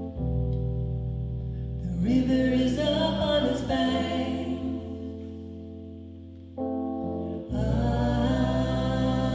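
Live folk song: a keyboard holds sustained chords under acoustic guitar, and a woman's lead voice with harmony voices sings two phrases, one about two seconds in and another starting near the end.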